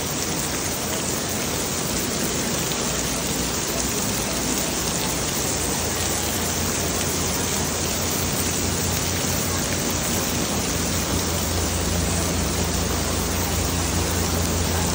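Heavy rain falling, a steady even hiss. A low steady hum comes in about six seconds in and carries on under the rain.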